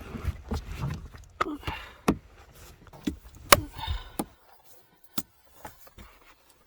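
Hands removing a loosened screw and working the cabin-filter access cover in a car footwell: a busy run of clicks and knocks, the sharpest about three and a half seconds in, then a few faint clicks.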